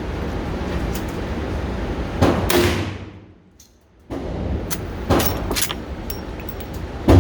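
Gunshots from a firearm at a shooting range: one a couple of seconds in, two close together about five seconds in, and a loud one near the end, over a steady low rumble.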